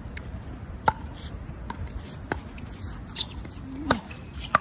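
Pickleball rally: the hollow plastic ball struck by paddles and bouncing on the hard court, giving sharp pops a second or so apart, four of them loud.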